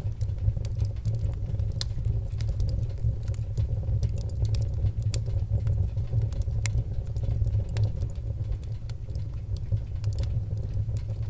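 Sound effect of a large building fire burning: a steady low rumble with scattered sharp crackles and pops.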